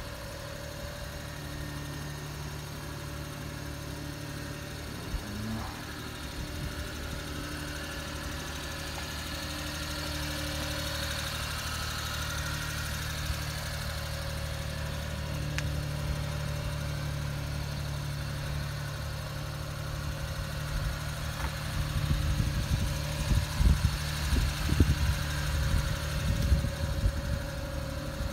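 Suzuki Carry kei truck's small three-cylinder engine idling steadily. In the last several seconds, irregular low rumbling surges come through louder than the engine.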